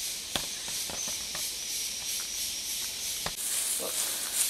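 A steady high hiss of insects, with a few sharp snaps and crackles of dry bamboo litter being stepped on and handled. Near the end the insect hiss grows louder and buzzier.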